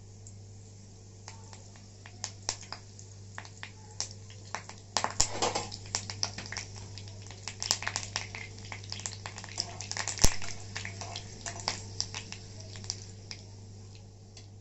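Curry leaves crackling and spluttering in hot oil for a tempering: irregular pops and crackles, busiest about five seconds in, with one sharp pop about ten seconds in.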